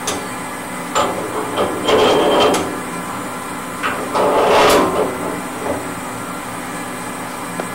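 Metal knocks, clinks and short scraping sounds as a circular knife is handled and shifted on the grinder's eccentric mounting flanges during a bevel changeover, over a steady machine hum.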